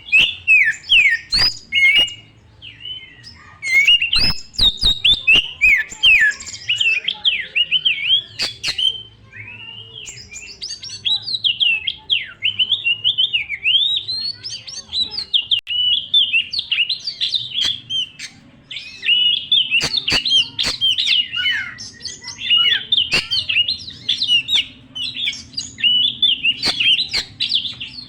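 Oriental magpie-robin (kacer) singing hard and without pause, a rapid, varied stream of whistled and chattering phrases packed with mimicked calls, with bursts of sharp clicks about four to six seconds in.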